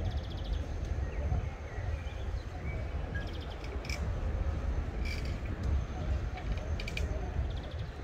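Outdoor marina ambience: a steady low rumble, with several short bursts of rapid high ticking and a few brief chirps, which may be small birds.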